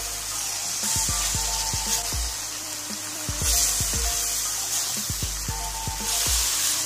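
Beef cubes sizzling in hot oil in a non-stick pan as they are stirred with a spatula, with a steady hiss that swells and fades. Background music plays throughout.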